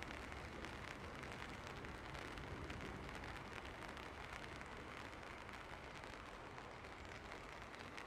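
Steady rain falling, an even hiss with many small drop ticks over a low rumble.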